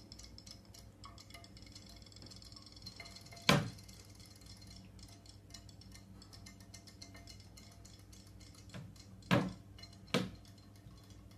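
Three sharp clinks against a small glass dish of water holding toy clownfish: one about three and a half seconds in and two close together near the end, over a faint steady hum and light ticking.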